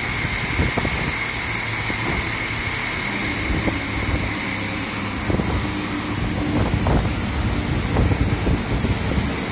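A flatbed tow truck's engine idling steadily, with gusty wind rumbling on the microphone and a few short knocks.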